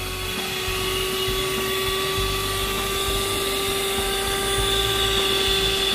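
Electric hand mixer running steadily, its beaters whipping gelatin-and-sugar syrup for marshmallows in a glass bowl, with an even motor whine.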